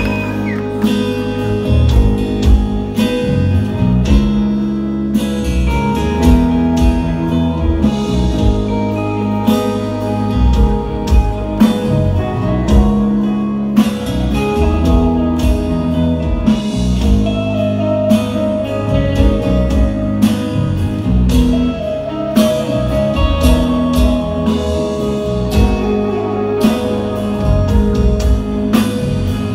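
Live rock band playing an instrumental passage: electric guitar over bass and a steady drum beat, loud and full.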